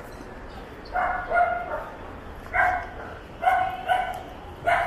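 A dog barking repeatedly, about six short barks in a loose series, roughly one a second.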